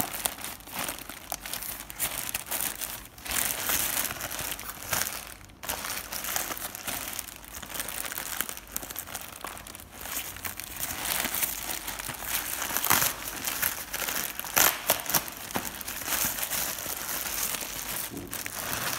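Plastic courier bag being crinkled and torn open by hand: continuous crackling rustle, with several sharper, louder crackles in the second half.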